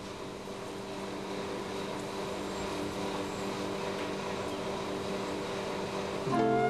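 A steady low drone over a hiss, growing slowly louder; near the end a flute melody comes in.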